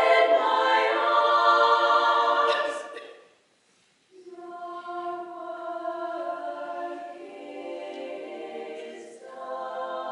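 Women's choir singing a cappella in sustained chords. A loud held chord fades out to a brief silence about three seconds in, then the singing resumes softly and swells again near the end.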